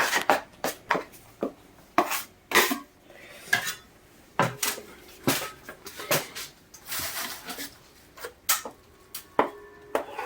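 Steel drywall knife clinking and scraping against a mud pan while ordinary joint compound is worked smooth with water: a dozen or so irregular sharp clinks, with a longer scrape about seven seconds in.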